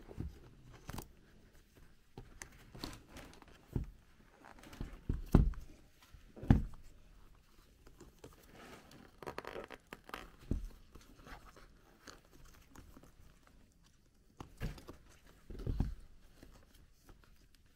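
Handling of new leather Dr Martens Eviee Mary Jane shoes: a strap worked through its metal buckle, with scattered clicks, knocks and paper rustles. The loudest knocks come about five and six and a half seconds in.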